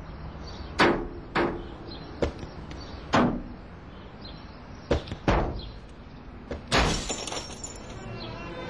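An irregular series of sharp knocks and bangs, about seven in all. The last, a little before seven seconds, is longer and more crashing than the others.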